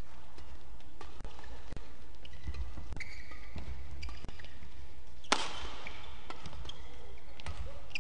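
Badminton doubles rally: rackets striking the shuttlecock in quick exchanges and shoes squeaking on the court floor, with one loud smash about five seconds in.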